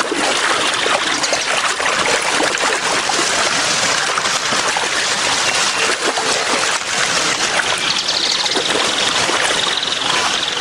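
Shallow river water splashing and running steadily as a jaguar wades and drags a freshly killed caiman through it.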